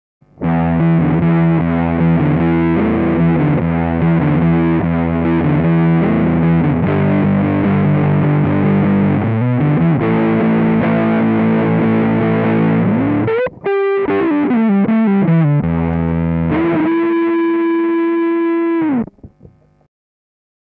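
Electric guitar played through an Electro-Harmonix Big Muff π fuzz pedal set with the tone knob at 9 o'clock, toward the dark side, and sustain at 12 o'clock, playing a thick, sustained distorted riff. It cuts out for an instant about two-thirds through, then ends on one long held note that bends down and stops a second before the end.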